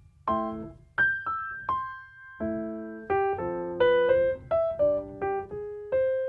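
Background music: piano chords and a short melody, each note struck and then fading.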